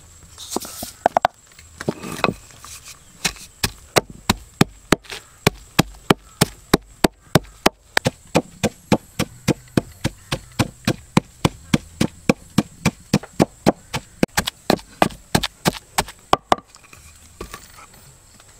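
Rapid, steady chopping with a knife or cleaver on a wooden board, about three strokes a second. A few separate knocks come first, then the chopping starts a few seconds in and stops shortly before the end.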